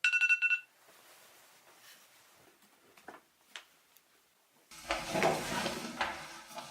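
Electronic phone alarm beeping in a quick run at one pitch for about half a second, then cutting off. A few faint clicks follow, and from about five seconds in comes a louder, unpitched rustling noise.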